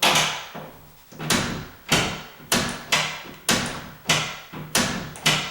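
A door's latch clacking against its strike plate as the door is pushed shut over and over: about nine sharp knocks, the first right at the start, then roughly two a second. The latch is not going fully into the strike because the strike plate's tab was tapped in too far.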